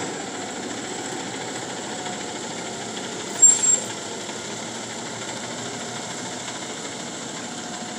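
Engine of an automated side-loading garbage truck running as the truck drives slowly past along the street, with a short sharp sound about three and a half seconds in.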